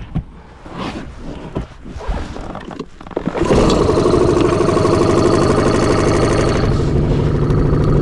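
A few knocks and clicks of handling gear on a small boat, then about three and a half seconds in a boat motor starts and runs steadily to move the boat.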